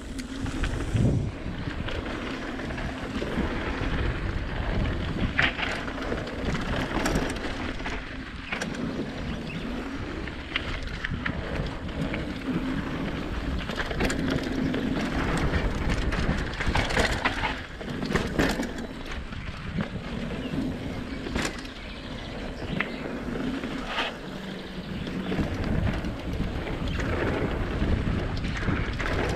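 Mountain bike riding down a dirt flow trail: a steady rush of tyre and wind noise, broken by frequent sharp rattles and clacks as the bike goes over bumps.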